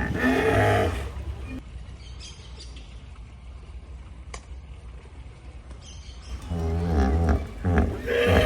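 Hippopotamus calling: a loud honking call in the first second, then a quieter low rumble, then a run of repeated honking grunts that starts about two seconds before the end and grows louder.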